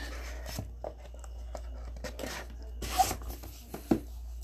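Handling a small cardboard card box and a stack of cards in plastic toploaders: sliding and rubbing with a few sharp taps and clicks. The loudest tap comes about three seconds in, with another just before the end.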